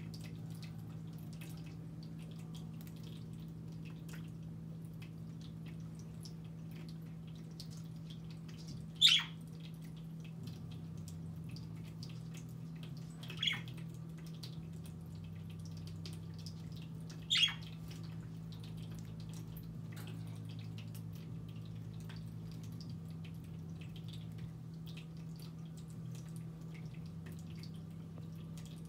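Pet budgerigars giving three short, sharp chirps, a few seconds apart, amid faint scattered ticking over a steady low hum.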